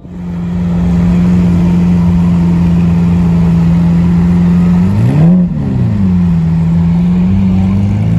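Lamborghini Aventador SVJ's V12 engine idling steadily, with one quick rev blip about five seconds in before it settles back to idle.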